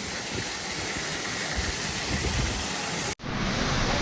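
Steady rush of waterfall water with a low rumble, cut off for an instant about three seconds in and then carrying on.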